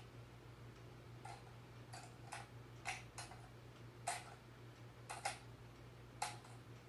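Small plastic LEGO pieces clicking as they are handled and pressed together: about ten sharp, irregular clicks, over a faint steady low hum.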